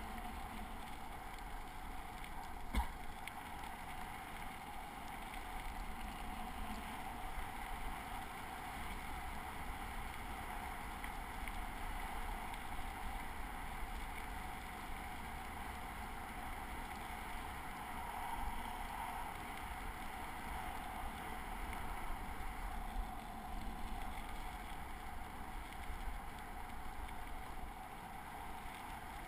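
Steady rolling noise of bicycle tyres on a gravel trail, mixed with wind noise, with one sharp knock about three seconds in.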